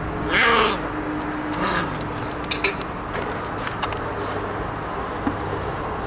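A young puppy gives a short, loud yelp about half a second in and a fainter one a little over a second later, followed by a few light clicks and knocks.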